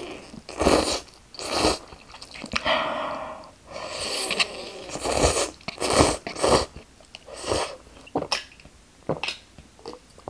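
Noodles from a cup of mala jjamppong ramen slurped off chopsticks in a run of short, noisy slurps, with chewing between them.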